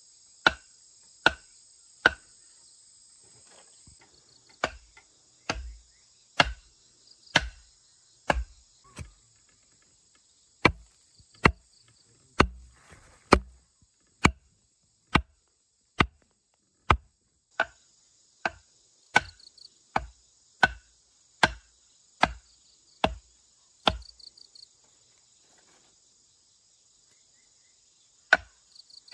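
Wooden mallet pounding the top of a bamboo stake to drive it into the ground: sharp knocks about one a second, with a short break twice. Insects chirr steadily in the background.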